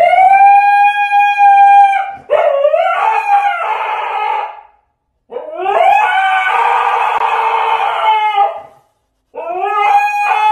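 Husky howling: a run of four long howls, each rising at the start and then held for two to three seconds, with brief pauses between. The middle two turn rough and grumbly, and the last is still going at the end.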